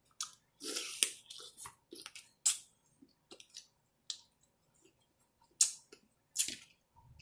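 Snow crab shells being cracked and snapped apart while eating: a series of sharp cracks and clicks, irregularly spaced.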